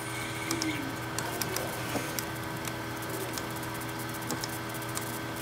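Steady electrical hum and hiss of room tone, with scattered light clicks of a computer mouse as vertices are clicked and dragged.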